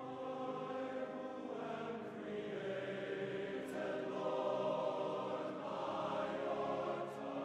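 A choir singing long held chords that move slowly from one to the next.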